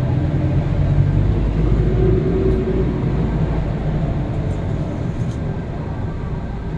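Town bus engine running and road noise heard from inside the cabin while it drives, a steady low sound without pauses.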